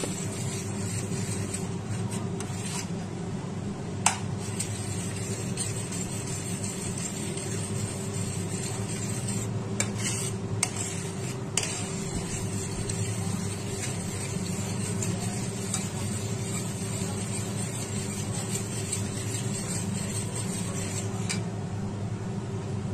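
Milk bubbling at a hard boil in a stainless steel pan on a high flame while a spatula stirs and scrapes round the pan, with a few sharp knocks of the spatula against the pan, over a steady low hum. The milk is being reduced to khoa.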